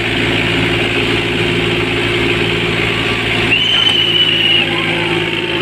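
Tractor diesel engines running steadily, with a high steady whistle lasting about a second beginning about three and a half seconds in.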